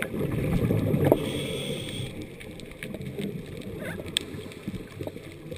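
Underwater rumble and bubbling from a scuba dive, heard through the camera's waterproof housing, loudest in the first second. Scattered sharp clicks run through it, and a faint high whine lasts about a second early on.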